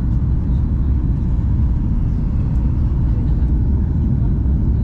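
Cabin noise of a Southwest Airlines Boeing 737 on its descent: a steady, deep rumble from the engines and the air rushing past the fuselage, heard from a window seat.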